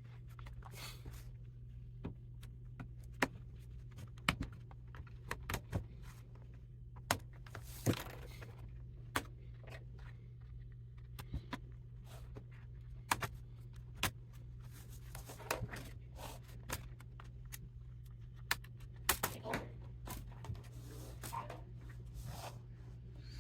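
Scattered clicks, taps and scrapes of small tools and plastic parts being handled while a Dell Latitude 5500 laptop is opened up, over a steady low hum.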